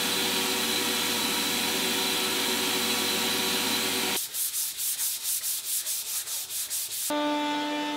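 A power sander running steadily on wood for about four seconds, then hand sanding with back-and-forth strokes about four a second. A quieter steady hum starts near the end.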